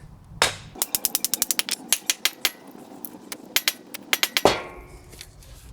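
Wooden mallet knocking on the back of a small axe to drive it into a green oak log and split it. There is a quick run of sharp knocks, then a few more, with the loudest about four and a half seconds in.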